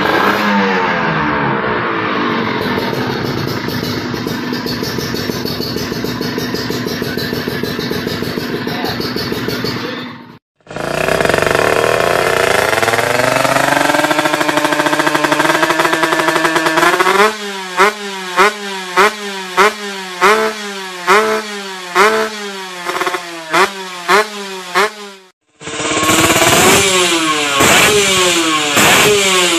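Two-stroke motorcycle engines revving through aftermarket racing exhausts, in three cuts. First a Kawasaki Ninja 150 with a KDX stainless muffler held at high revs, which drop in the first couple of seconds and then hold. After a short break a second bike runs, then is blipped sharply about a dozen times, roughly twice a second, and after another break a third bike revs.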